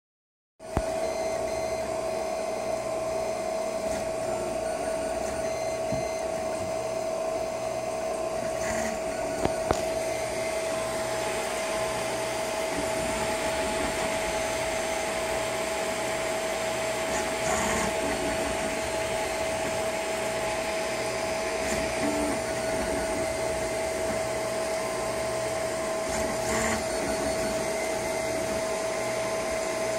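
3D printer printing: its cooling fans whir with a steady whine, under a low stepper-motor hum that starts and stops again and again as the print head and bed move. A few light clicks come about nine seconds in.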